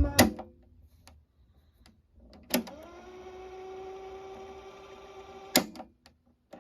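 Technics cassette deck's transport: a click as playback stops, then another click and the tape winding at speed, a whirring hum that rises in pitch as it spins up and then holds steady for about three seconds, ended by a sharp click.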